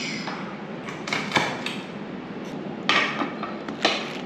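Metal spoon clinking and scraping against ceramic bowls as coconut soup is ladled, with several sharp clinks, the loudest about a second and a half in.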